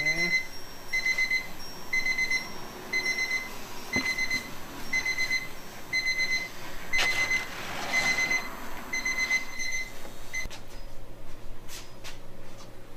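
Electronic beeper sounding a steady high beep about once a second, each beep short, until it stops about ten seconds in.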